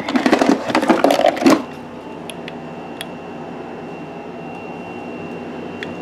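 Objects clattering and knocking as they are handled for about a second and a half, then the steady running of a 5,000 BTU Kool King window air conditioner, its fan and compressor going with a low hum.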